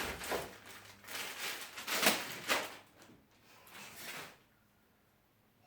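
Plastic packaging being handled and pulled off a power-tool part, a run of rustling, scraping bursts over the first three seconds and a smaller one about four seconds in, then quiet.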